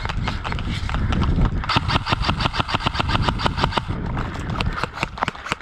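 Airsoft rifle firing a full-auto burst, a fast even rattle of about ten shots a second lasting around two seconds, followed by a few scattered single shots. Low rumble of wind and movement on the microphone before the burst.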